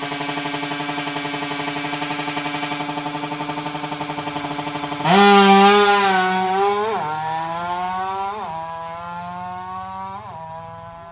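Motorcycle engine running steadily, then opening up loudly about halfway through and pulling away, its pitch climbing and dropping sharply three times as it shifts up through the gears and fades into the distance.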